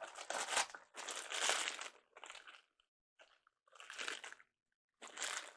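Plastic packaging crinkling and rustling as parts are handled and taken out of a box, in five short spells with brief pauses between.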